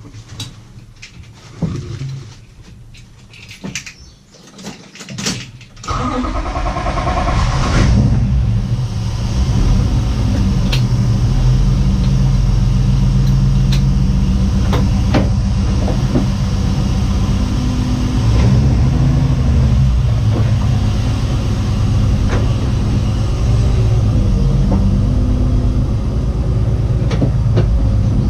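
A few clicks and knocks, then about six seconds in a car engine cranks, catches and settles into a steady idle. The engine has a misfire.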